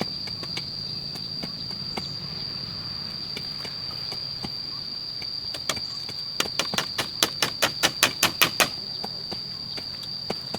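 Hammer blows on wood during house repair: a few scattered strikes, then a quick run of about fifteen blows, roughly five a second, a little past halfway. A steady high-pitched whine sounds underneath.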